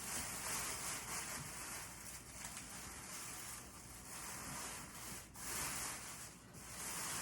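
Continuous rustling and rubbing of packaging material being handled, with brief pauses about five and six and a half seconds in.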